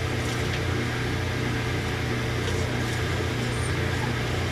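Electric motor running steadily, a low hum with an even whir over it and a few faint ticks.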